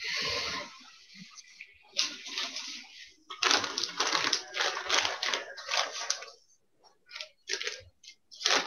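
Crackly crinkling and rustling in several bursts, like a plastic packet of fly-tying material being handled, as a pinch of red seal's fur is fetched, followed by a few scattered clicks near the end.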